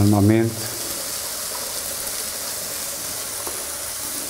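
Food frying: a steady sizzle with a few faint crackles, from hake burgers on a hot ridged grill pan and pieces of garlic in olive oil.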